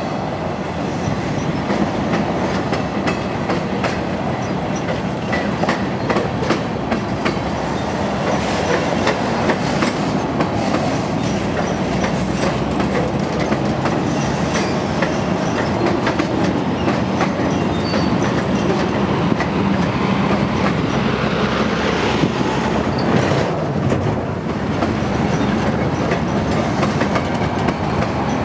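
Union Pacific freight cars rolling past at track side: steel wheels clicking over rail joints in a continuous clatter, with the rumble and rattle of the empty cars.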